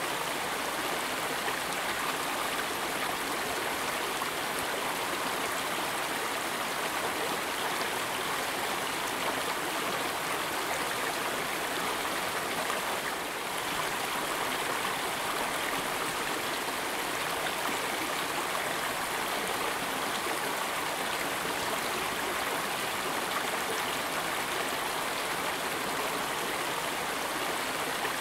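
Steady rushing of stream water over rocks, an added sound-effect track, dipping slightly for a moment about halfway through.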